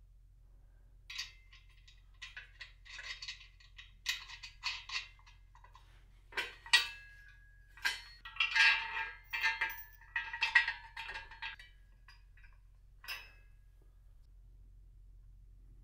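Steel bolts and nuts clinking and rattling against a steel bracket and square steel tubing as they are fitted by hand: scattered bursts of metallic chinks, some with a brief ring, from about a second in until about thirteen seconds in.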